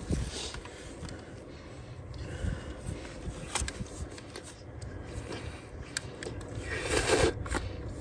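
Rustling and scraping of clothing and dry grass as people crouch and a gloved hand brushes the ground, with a low rumble underneath and a louder rustle near the end.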